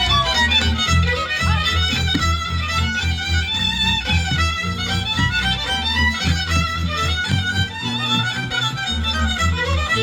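Band music led by a fiddle playing a quick run of notes, with a pulsing bass line underneath.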